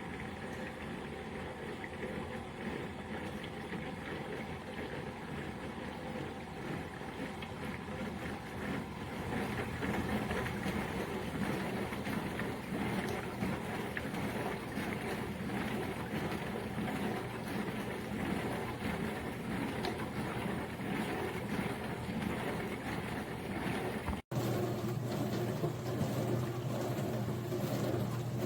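HAVA tabletop dishwasher running: a steady whir of its wash pump with water spraying inside, growing louder about ten seconds in. It drops out for an instant near the end and comes back with a deeper steady hum.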